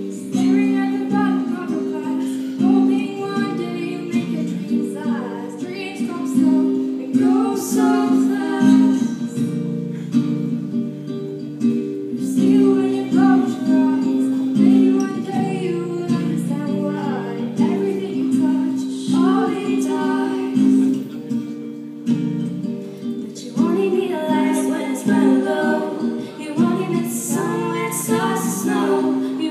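Live acoustic guitar strummed in steady chords, accompanying female vocals singing a slow song.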